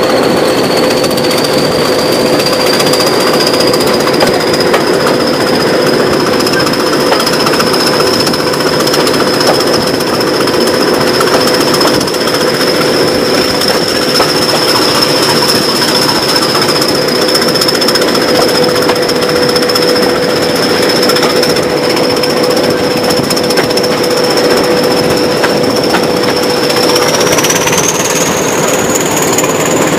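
Class 20 diesel locomotive D8188's English Electric 8SVT turbocharged V8 working under power, a loud, steady hammering clatter. Over it runs a high turbocharger whistle that creeps slowly up in pitch and climbs sharply again near the end.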